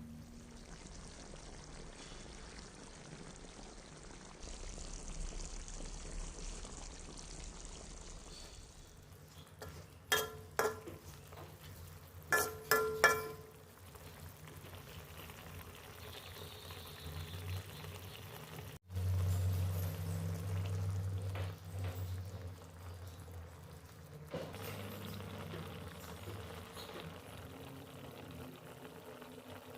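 Kitchen cooking sounds: liquid being poured into a pot, with two quick clusters of metal clinks of a utensil or lid against the pot partway through.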